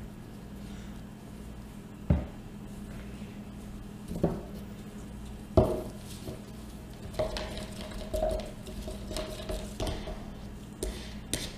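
Plastic soap-pouring jugs set down and knocked against the table three times, the last the loudest, then a utensil stirring and clicking inside a jug of soap batter, with a faint squeak of scraping plastic, over a low steady hum.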